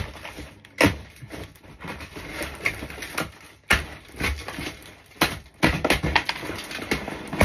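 Cardboard parcel box being torn open by hand: irregular sharp rips and cracks of cardboard and tape, with rustling between them.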